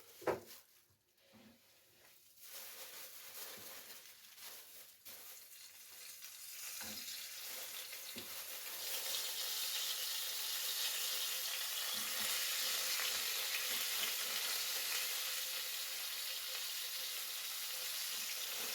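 Floured pollock frying in hot oil in a pan. The sizzle starts about two seconds in, grows louder over the next several seconds, then holds steady, with a few soft knocks.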